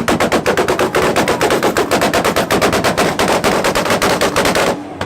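A car's exhaust firing a rapid, steady stream of pops and bangs, about ten a second, from an engine held against a two-step launch rev limiter. It cuts off abruptly near the end.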